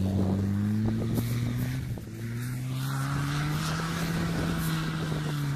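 Suzuki Samurai's engine revving hard as it drives off-road across rough grass. The pitch climbs, drops about two seconds in as it shifts gear, then climbs again and holds steady.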